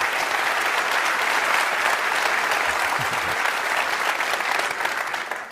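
Large audience applauding steadily after a talk, the clapping dying away at the very end.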